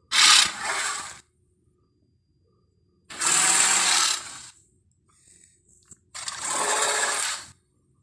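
Three harsh, breathy Tyrannosaurus rex vocalisation sound effects. Each lasts a second or so, with pauses of about two seconds between them.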